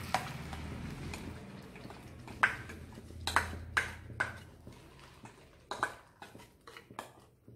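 Spoon scraping thick guava puree out of a bowl into a frying pan, with several sharp knocks of the spoon against the bowl, over a low steady hum that fades about halfway through.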